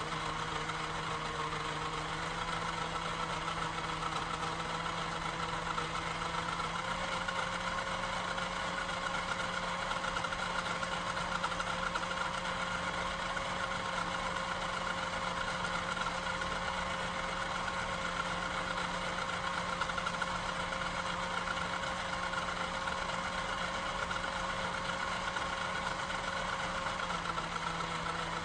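3D-printed model traction engine running steadily while belt-driving a Wilesco toy Ferris wheel: a continuous mechanical pitter-patter with a hum. The hum rises slightly in pitch about seven seconds in and drops back near the end.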